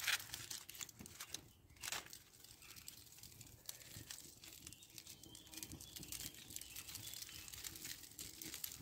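Aluminium foil crinkling as a foil-wrapped parcel of chicken kebabs is set onto a campfire, once at the start and again about two seconds in. Then faint crackling and sizzling from the fire and the foil parcels beginning to cook.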